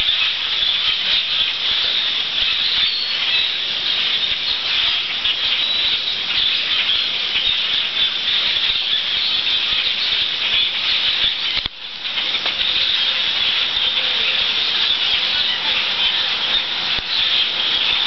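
A huge migrating flock of birds passing overhead: a dense, unbroken din of countless bird calls, shrill and steady, with a brief dip about two-thirds of the way through.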